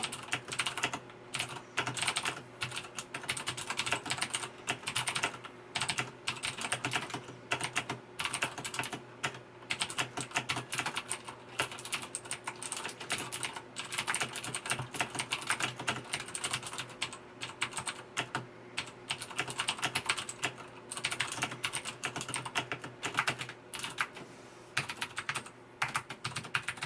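Fast, continuous typing on a Razer BlackWidow Ultimate mechanical keyboard with Cherry MX Blue switches: a dense stream of sharp key clicks with a few brief pauses. Blue switches are the clicky type, each keypress giving an audible click.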